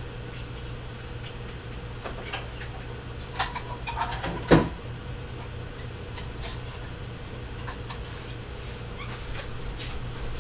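Scattered clicks and knocks of craft supplies being handled and rummaged through while a paper punch is fetched, with one louder knock about four and a half seconds in, over a steady low electrical hum.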